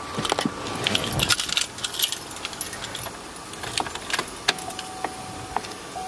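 Keys jangling on a key ring as the key is put into the 2018 Chevrolet Silverado's ignition and turned, with small clicks. About four and a half seconds in, a steady electronic tone starts, with a tick about twice a second.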